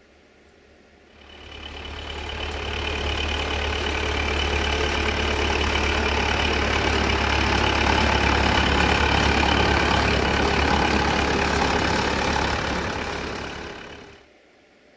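Farm tractor's diesel engine running steadily as it drives along, rising over the first seconds after it starts about a second in and cutting off near the end.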